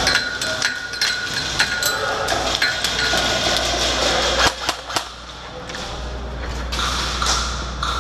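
Scattered airsoft gunfire: sharp clicks and snaps of shots and BB hits at irregular intervals, with two louder cracks about halfway through.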